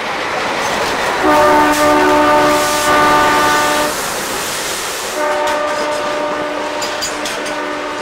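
Diesel locomotive horn sounding two long, steady multi-tone blasts about a second apart, over the rumble and clatter of a container freight train's wagons running past.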